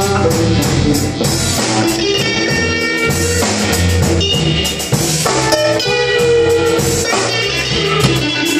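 Live blues-rock band: an electric guitar plays held lead notes over bass guitar and a drum kit.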